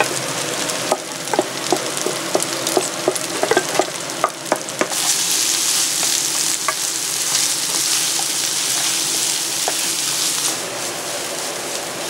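Ground beef and onion frying in a pan while being stirred: sharp knocks and scrapes of the utensil against the pan in the first few seconds over steady sizzling. From about five seconds in the sizzle grows louder and hissier, then eases a little near the end.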